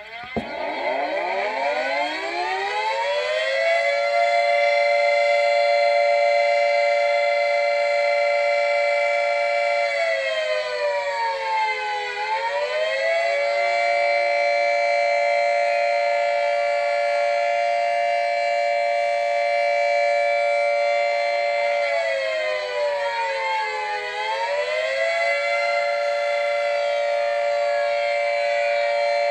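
Outdoor warning siren winding up from silence over about three seconds to a steady chord of several tones. It holds the chord, dips in pitch and climbs back about ten seconds in, then again about twenty-two seconds in.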